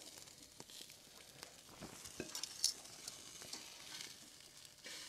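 Boneless chicken thighs sizzling faintly on a grill over a wood campfire, with scattered sharp crackles and clicks.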